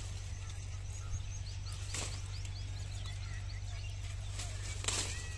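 Bean vines rustling as pods are picked by hand, with two brief rustles about two seconds in and near the end. Meanwhile a bird gives a quick run of short high chirps in the background, over a steady low rumble.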